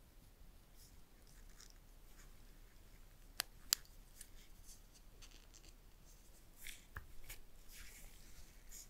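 Quiet rustling of nitrile gloves and small handling noises. About three and a half seconds in come two sharp clicks as a nano-SIM card is pressed into an iPhone 12's SIM tray. Near the end, a quieter click and a brief scraping come as the tray slides back into the phone's frame.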